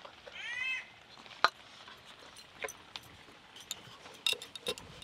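A single bird call, one arched cry lasting about half a second, near the start. Then a sharp knock, followed by scattered light taps and clicks of a wooden rolling pin on a wooden board as a dough round is rolled out.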